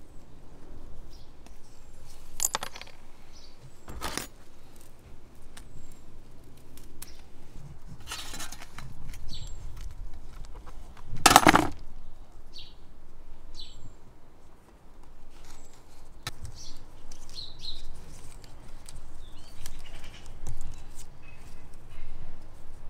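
Handling noises from wiring a ficus bonsai: leaves and branches rustling, with small clicks and clinks from the wire as it is wrapped. A short, louder burst of handling noise comes about eleven seconds in.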